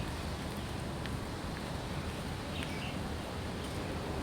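Outdoor background of a steady low rumble, with a couple of short, faint bird chirps.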